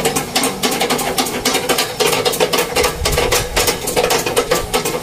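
Old cast-iron treadle sewing machine running, driven by a bare foot pumping the treadle: a fast, even stream of mechanical clicking.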